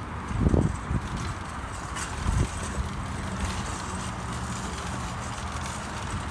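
Car engine running steadily, a low hum, with two dull thumps in the first few seconds.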